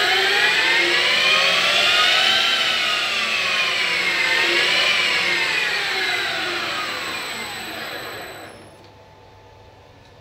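VFD-driven CNC spindle motor whining: it speeds up for about two and a half seconds, slows, speeds up briefly again, then winds down and stops about eight and a half seconds in. A steady high-pitched tone runs with it and cuts off when it stops.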